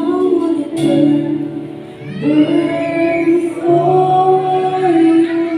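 Praise and worship team singing a slow worship song in long held notes, with instrumental accompaniment.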